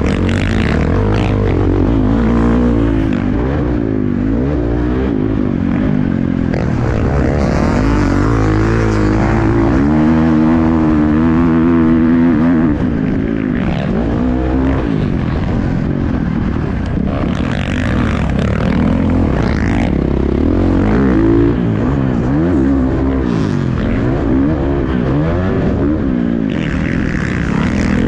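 2023 Husqvarna FC450's single-cylinder four-stroke engine revving up and down over and over as the dirt bike is ridden hard around a motocross track, heard from a helmet-mounted camera.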